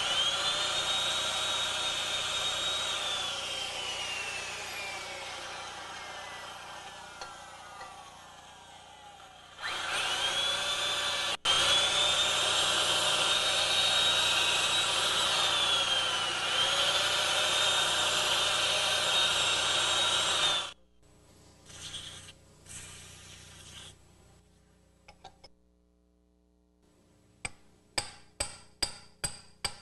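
Electric drill boring through the rubber of a lower control arm bushing. It runs with a high whine, slows down and stops, then runs again for about ten seconds, its pitch dipping briefly now and then. Near the end comes a quick even run of hammer blows, about three a second, on a metal drift set in the bushing.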